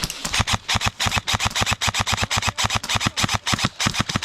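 Airsoft rifle firing one long full-auto burst, roughly ten shots a second, loud and close, stopping near the end.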